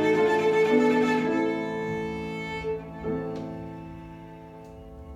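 Cello and piano playing the closing bars of a slow piece: a few held cello notes, then a last note and chord struck about three seconds in that slowly fade away.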